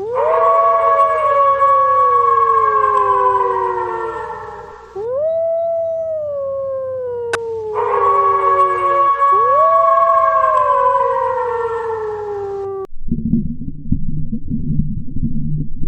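A dog howling: three long howls, each rising quickly and then sliding slowly down in pitch. Near the end it gives way to a low, rough rumbling sound.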